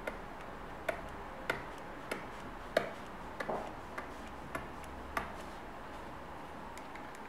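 Hard tip of a Wacom Creative Stylus 2 clicking against an iPad's glass screen as each line is drawn: about ten short ticks, roughly one every half second, stopping about five seconds in. This is the stylus's characteristic tap each time the pen touches the screen.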